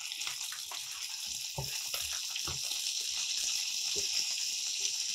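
Fish and tomato sauce sizzling steadily in a frying pan, with a few light knocks now and then.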